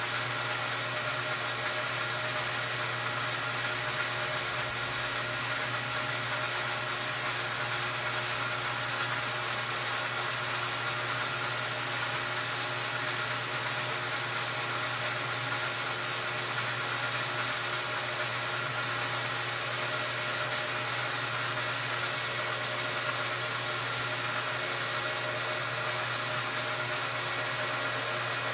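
Metal lathe running steadily with a low hum and a high, even whine, its tool taking a facing cut across an aluminum piston.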